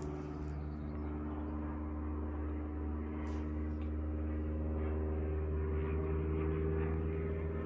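A steady low machine hum made of several held tones, drifting slightly upward in pitch in the second half, with a faint brief rustle about three seconds in.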